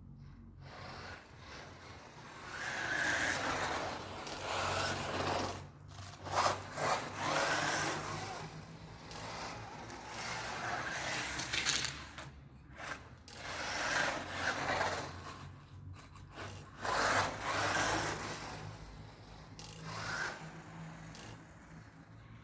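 WLtoys 124017 RC buggy's brushless electric motor whining, the pitch rising and falling again and again with the throttle, over tyre noise as it is driven around the track.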